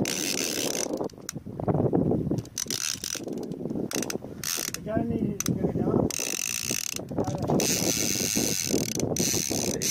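Large conventional fishing reel being cranked, its gears and ratchet running in stop-start runs as line is wound in on a hooked fish.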